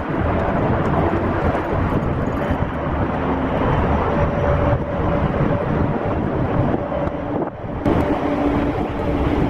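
Outdoor street noise: a continuous rumble of wind buffeting the microphone mixed with vehicle engine noise, with a faint steady hum through the middle.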